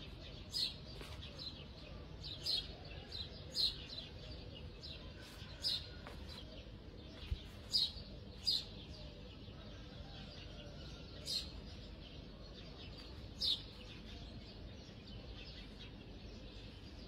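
A small bird chirping: single short, sharp chirps every second or two, ending a few seconds before the end.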